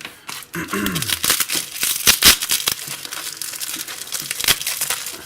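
Packaging crinkling and rustling as it is handled, with sharp crackles throughout.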